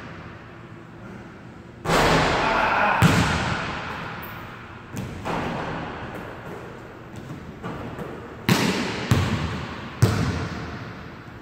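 Basketball bouncing on a hardwood gym floor: several single thuds spaced a second or more apart, each with a long echo in the large hall.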